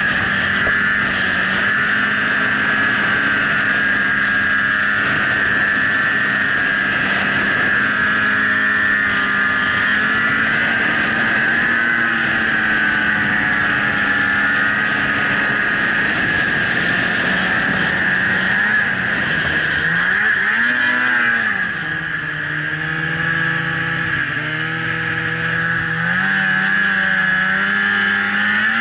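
Snowmobile engine running at speed with a steady high whine. About two-thirds of the way through, its pitch rises and falls, then settles lower.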